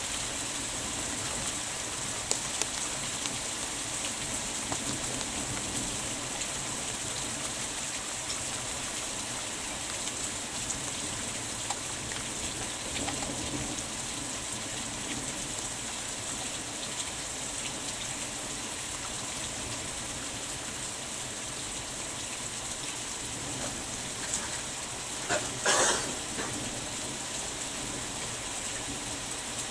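Heavy rain falling steadily, with one short, louder rush of noise near the end.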